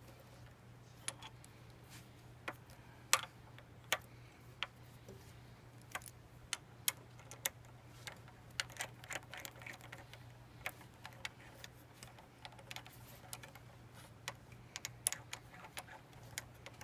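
Irregular small clicks and taps of metal parts being handled as a GPR steering stabilizer is fitted and lined up on its mount, about one to three ticks a second at uneven spacing.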